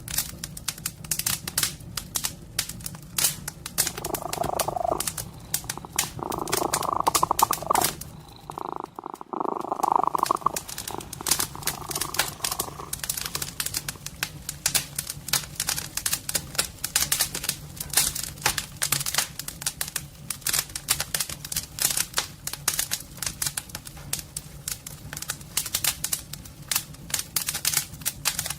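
A wood fire crackling in a fireplace with a dense run of quick snaps, over a cat's steady purr. From about four to thirteen seconds in, a few louder stretches a second or two long rise above the purr.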